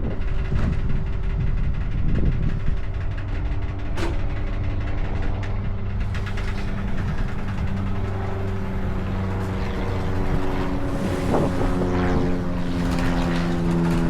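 An engine idling steadily, with one sharp click about four seconds in; around eleven seconds in the engine's pitch shifts slightly higher.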